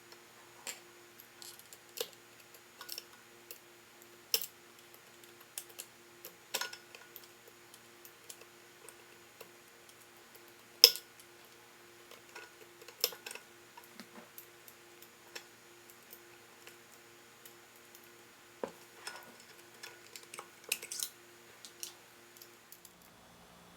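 Scattered light clicks and taps of a screwdriver and metal grinder parts being handled during reassembly of a Mazzer Mini coffee grinder's burr assembly, with one sharper knock about eleven seconds in. A faint steady hum runs underneath and stops near the end.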